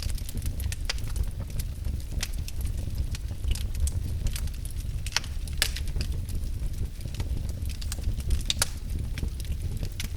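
Wood fire burning in a fireplace: a steady low rumble under scattered crackles and sharp pops, with the loudest pops about midway and again near the end.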